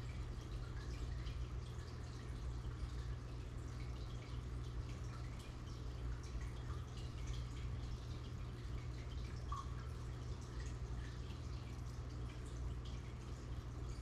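Aquarium water bubbling and trickling at the surface, a steady patter of many small drips and pops, over a constant low hum from the tank's filter pump.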